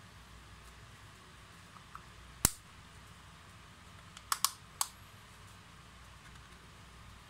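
Sharp plastic clicks from handling a partly disassembled cordless drill's plastic housing: one loud click about two and a half seconds in, then three quick clicks about four and a half seconds in.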